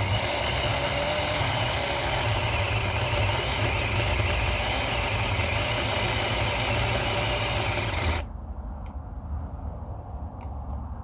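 A vehicle engine idling steadily under a lot of hiss. About eight seconds in the sound drops abruptly, leaving a lower rumble and a few faint clicks.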